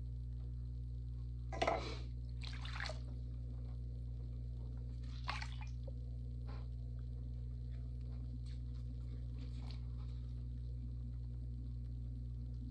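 Electric potter's wheel running with a steady low hum, under a few short wet splashing and dripping sounds from the water-soaked sponge and clay, about one and a half to three seconds in and again about five seconds in.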